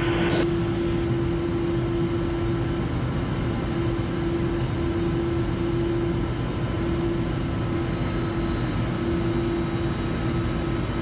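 Steady in-flight cabin noise of a Cirrus SF50 Vision Jet: the drone of its single turbofan engine and airflow, with a constant steady tone running through it.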